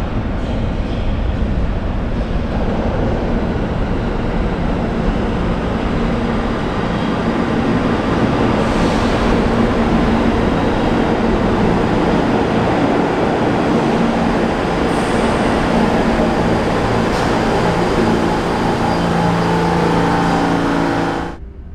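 New York City subway G train running into an underground station: a steady, loud rumble of wheels on the rails and running gear, with a whine from the train coming in near the end. The sound cuts off suddenly just before the end.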